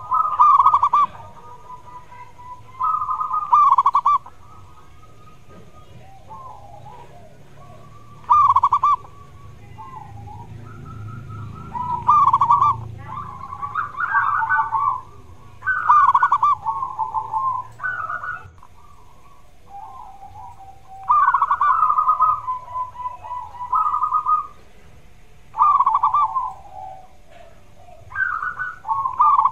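Zebra dove (perkutut) singing: repeated phrases of rapid, rolling coo notes, one every couple of seconds with short pauses between.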